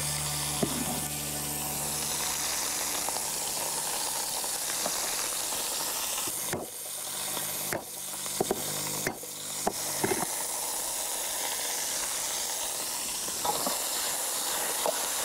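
Chicken pieces frying in hot oil in a wok, a steady sizzle, with four sharp knocks of a cleaver on a wooden chopping board about halfway through.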